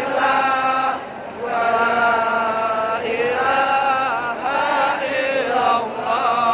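A group of pilgrims chanting prayers together in unison while walking the Sa'i, with a man's voice close by and loudest. The phrases are drawn out into long held notes, with a short break about a second in.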